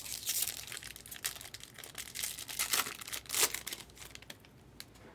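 Foil wrapper of a baseball card pack crinkling as it is torn open and handled, in a run of crackles that gets loudest about three and a half seconds in, then dies away.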